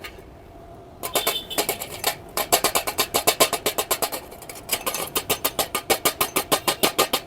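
A hammer tapping rapidly on a freshly welded steel joint, about four to five sharp metallic strikes a second in two runs with a short pause between, knocking off slag to check the weld bead.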